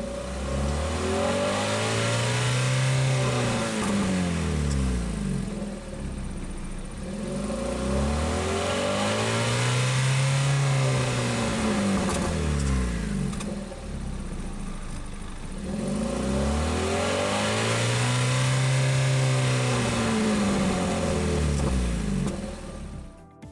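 Kia Ceed's 1.6-litre 16-valve G4FC four-cylinder engine heard at the exhaust tailpipe, revved three times: each rev a slow rise in pitch and a fall back over several seconds.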